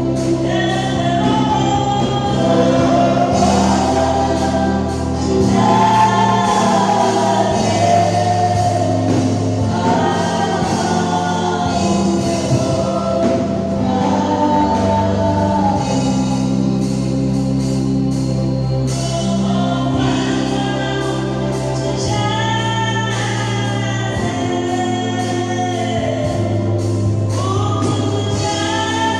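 Gospel choir singing with instrumental accompaniment, a sustained bass line moving to a new note every few seconds.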